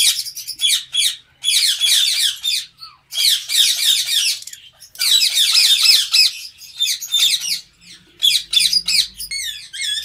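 Lovebirds squawking and chattering in shrill, fast-wavering bursts of about a second each, broken by short pauses.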